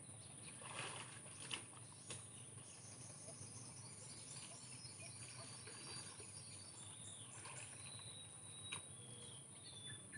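Faint forest ambience: a steady high insect drone, with small birds chirping and giving short whistled calls through the second half, and a couple of faint knocks early on.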